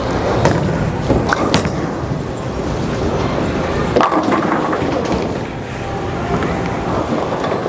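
A 900 Global Zen U urethane bowling ball rolls down the lane with a steady rumble, then crashes into the pins about four seconds in.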